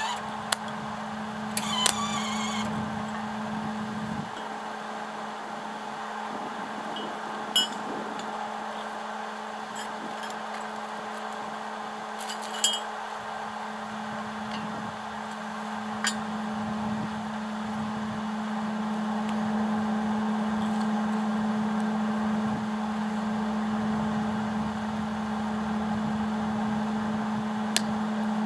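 A steady machine hum, with a few short, sharp clinks of metal scattered through it.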